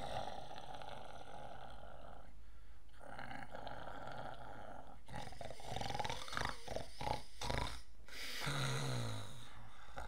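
A man snoring: long rasping breaths, a run of rattling snorts in the middle, and a low voiced sound sliding down near the end.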